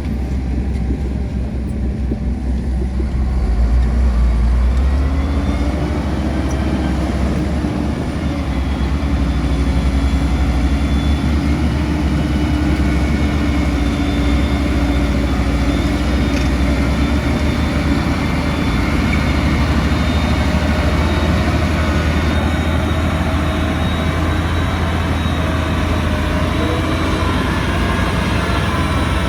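Heavy diesel engine of an earthmoving machine running steadily under load. It speeds up about four seconds in and then holds a constant pitch.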